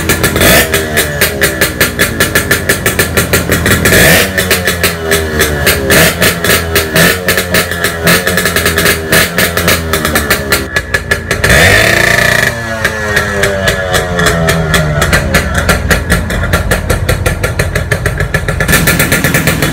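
Motorcycle engine revved again and again through its chrome exhaust, in place of firecrackers: a rapid pulsing exhaust note whose pitch swells and falls back, with the hardest revs about four seconds in and around twelve seconds.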